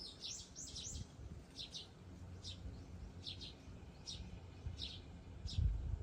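Eurasian tree sparrow chirping: a quick run of short, high chirps in the first second, then single or paired chirps every half second to a second.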